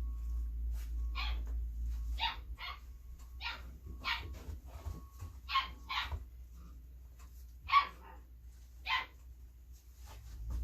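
Belgian Malinois puppy giving short, high yips and barks, about nine separate calls at uneven intervals, one louder than the rest near the end, over a low steady hum.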